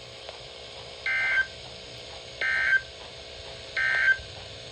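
Emergency Alert System SAME digital data bursts on a weather radio broadcast: three short, evenly spaced bursts of data tones a little over a second apart. They are the end-of-message code that closes a severe thunderstorm warning.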